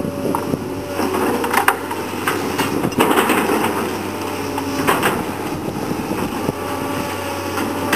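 Komatsu PC220 excavator's diesel engine running steadily while its bucket tears through brush and woody debris. Sharp cracks and snaps of breaking wood come several times, the loudest about three seconds in.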